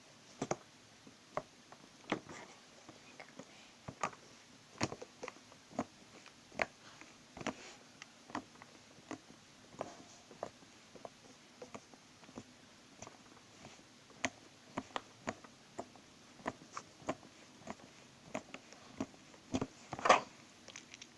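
Slime being squished and stretched in the hands, making small wet clicks and pops at an irregular rate of about two or three a second, with a louder pop near the end.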